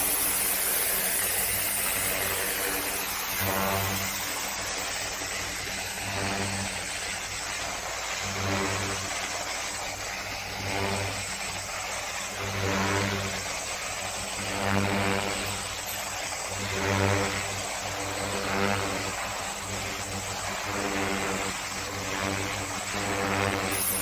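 A pressure washer's engine runs with the hiss of the water spray; its hum swells and eases every couple of seconds.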